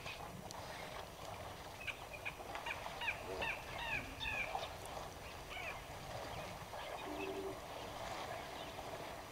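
Birds calling: a quick run of short, falling chirps about two to five seconds in, over steady outdoor ambience, with a brief low two-note hoot around seven seconds in.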